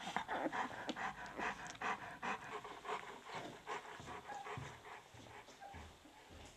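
Mother dog panting rapidly while nursing her newborn puppies, an even run of quick breaths several times a second that grows softer after about three seconds.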